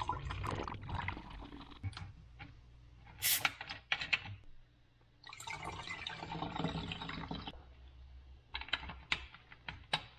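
Spiced syrup poured through a silicone funnel into a plastic 2-liter soda bottle of ginger ale, in two spells: one at the start and a longer one about five seconds in. Sharp plastic clicks and knocks come between the pours and near the end as the funnel and bottles are handled.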